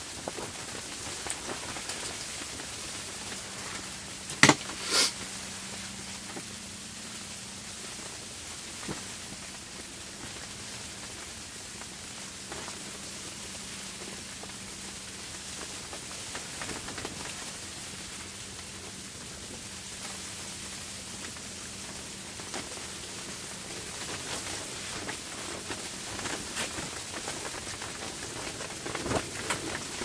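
Steady even hiss of a snowstorm, with a faint low hum through most of it and two sharp knocks about four and a half and five seconds in.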